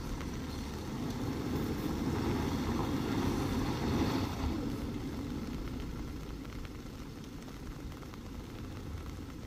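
Force Gurkha's 2.6-litre diesel engine running at low revs as the 4x4 crawls slowly over a dirt track, swelling slightly about four seconds in and then easing.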